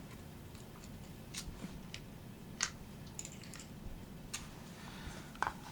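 A few scattered faint clicks of small metal parts being handled as a Ruger Mark II .22 pistol is put back together.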